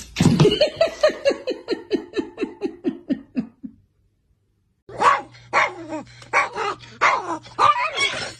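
A fast run of short cries, about five a second, falling steadily in pitch. After about a second's silence comes a chihuahua's irregular yapping over a steady low hum.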